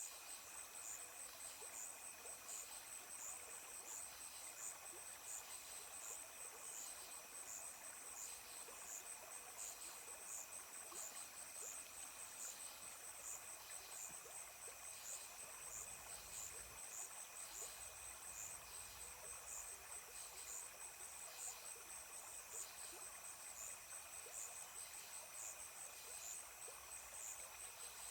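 Faint, steady insect-like chirping: high pulses repeating at an even, regular pace, like crickets at night.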